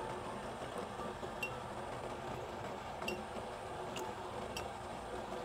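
A metal teaspoon clinking lightly about four times against a glass jar and a ceramic mug as spoonfuls are ladled from jar to mug, over a faint steady room hum.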